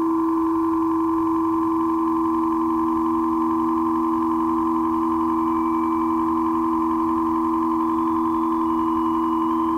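Ambient drone music from a four-track cassette recording: sustained steady tones without a beat. Faint higher tones join about halfway through and again near the end.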